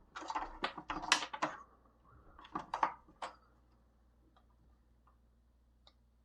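A quick run of sharp clicks and light knocks for about the first three seconds, then a few faint isolated ticks: small plastic parts and tools being handled at a workbench.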